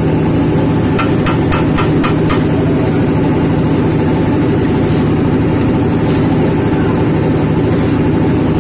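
Engine of construction-site machinery running steadily and loud at a constant speed. About a second in there is a brief run of light, rapid ticks, roughly five a second.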